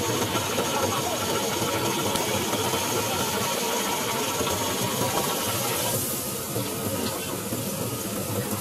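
Fishing boat's engine running under a steady hissing wash of water and masses of small fish thrashing in the net. The sound drops a little about six seconds in.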